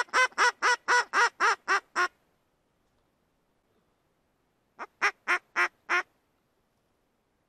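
Hand-blown duck call sounding a hen mallard's quacks: a run of about eight quacks that falls in pitch and tapers off about two seconds in. After a pause, a shorter run of four or five quacks comes about five seconds in.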